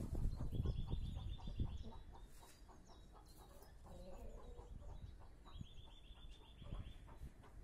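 A bird's rapid pulsed call, heard twice for about a second and a half each, from the fowl in a farm aviary. Low rustling and small knocks fill the first two seconds.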